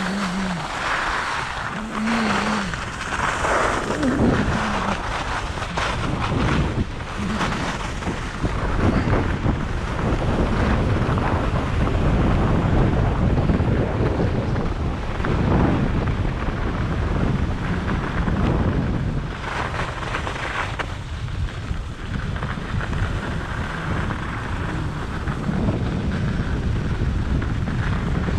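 Wind buffeting an action camera's microphone during a fast ski descent, with skis scraping over packed, rutted piste snow. The sound is continuous, swelling and easing as speed and turns change.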